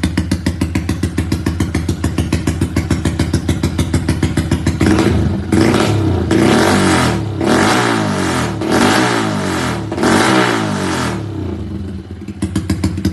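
Modified Yamaha Y15ZR-type 150 cc single-cylinder motorcycle on an aftermarket exhaust, idling with a lumpy, pulsing rumble. From about five seconds in it is revved in about five quick blips, then settles back to the rumbling idle near the end.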